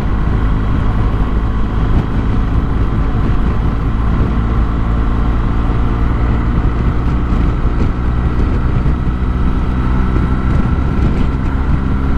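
Motorcycle engine running at a steady cruise, with rushing road and wind noise over it.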